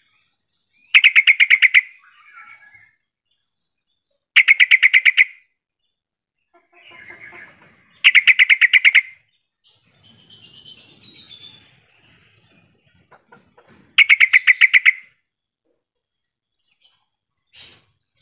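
Yellow-vented bulbul (trucukan) calling: four loud bursts of quick, alike notes, about ten to a burst and each burst under a second long, spaced a few seconds apart. Fainter, higher chirps sound between the bursts, one sliding down in pitch partway through.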